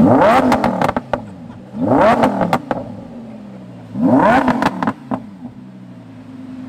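Lamborghini Huracán's V10 blipped three times, about two seconds apart, from a standstill. Each rev rises and falls quickly, with exhaust crackles as it drops back to idle.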